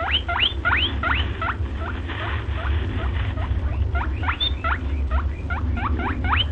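Rapid high squeaks from a small animal, used as the rabbit's sound. Each squeak sweeps sharply up in pitch, several a second, thinning out briefly in the middle, over a steady low hum.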